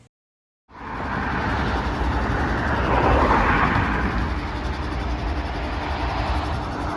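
Norfolk Southern diesel freight train rumbling steadily with a deep low drone. It cuts in sharply after a moment of silence and swells a little about three seconds in.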